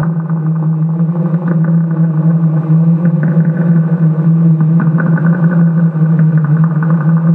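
A loud, steady low droning hum with a rough, buzzing texture over it. It holds the same pitch throughout.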